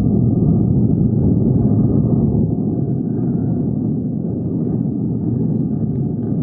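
Steady rumble of an Airbus A320-family jet's engines and airflow, heard inside the passenger cabin, easing slightly about two and a half seconds in.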